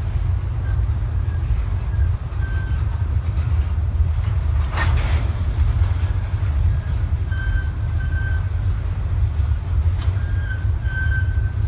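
Double-stack intermodal freight train rolling past: a steady low rumble of wheels on rail, with faint, short high squeals now and then and a sharp clank about five seconds in.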